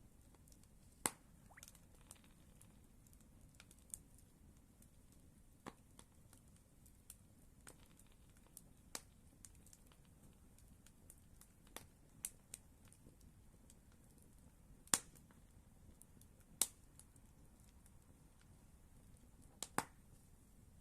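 Campfire crackling: sharp pops and snaps at irregular intervals over a faint, quiet background, the loudest about fifteen and sixteen and a half seconds in.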